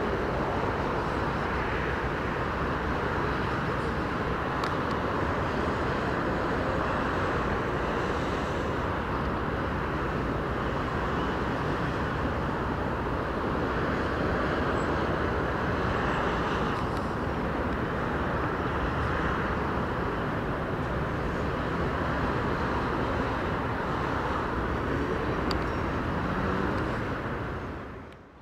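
Steady distant city traffic din, an even rush with no single vehicle standing out, fading out near the end.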